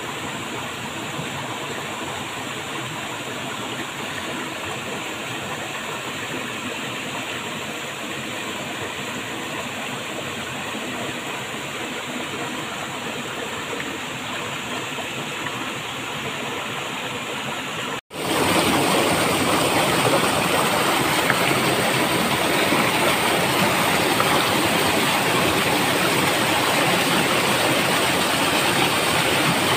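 Steady rushing of flowing water. About two-thirds of the way through, it cuts out for an instant and comes back louder as a waterfall.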